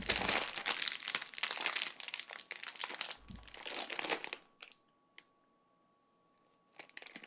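Plastic chip bag crinkling as it is gripped and pulled open by hand. The crinkling lasts about four seconds, then stops, with a few faint crinkles near the end.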